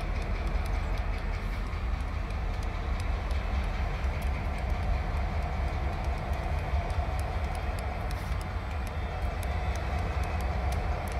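Canadian Pacific freight train passing close by: several diesel locomotives running with a steady low rumble, an engine hum growing stronger in the second half as the later units go by, and light clicking of wheels over the rail joints.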